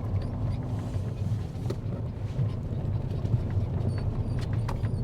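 Inside a moving vehicle: a steady low hum of engine and road noise, with a few faint clicks and rattles.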